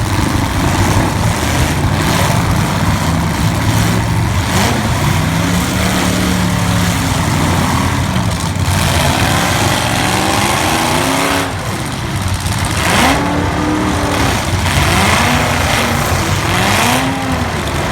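V8 demolition derby cars' engines running loudly and revving, their pitch rising and falling again and again, several engines overlapping.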